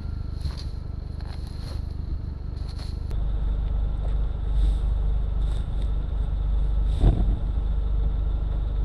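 A vehicle's engine idling steadily, with intermittent rustling and scraping as cut grass is pulled off a steel blade towed behind it. There is a brief louder knock about seven seconds in.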